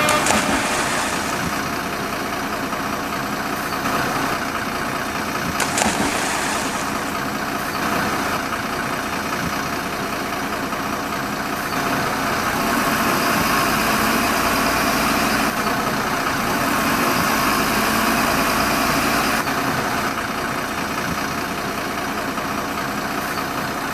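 Vehicle engine running steadily, a little louder for several seconds past the middle, with a single sharp knock about six seconds in.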